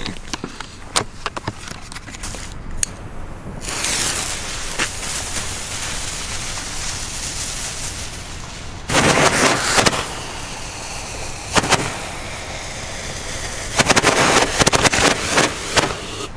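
A few sharp clicks at first, then a 20-shot Keller Roman candle hissing as it burns, firing its shots in quick crackling bunches. The loudest bunches come about nine seconds in, briefly near twelve seconds, and again near the end.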